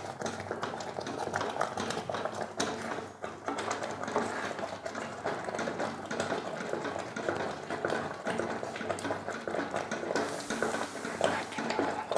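Metal spoon stirring a thick mixture of cooked rice, moong dal and jaggery syrup in a pot, with an irregular stream of scraping and small knocks against the pan.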